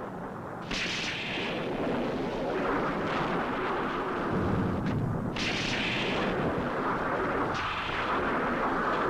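Film sound effects: sudden heavy crashes, about a second in, about five seconds in and again near the end, each trailing off into a long noisy rumble.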